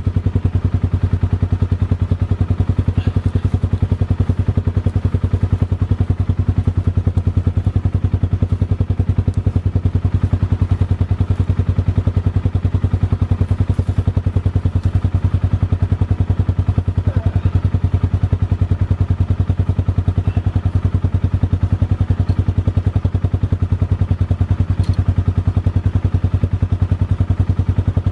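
Ram 3500's Cummins turbo-diesel engine idling, a steady low rumble with a fast, even pulse.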